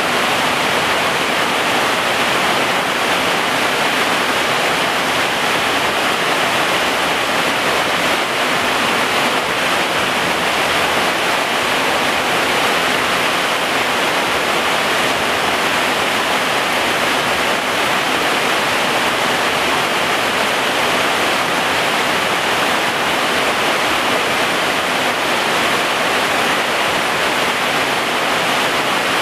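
Steady heavy rain, an even hiss without a break or a change.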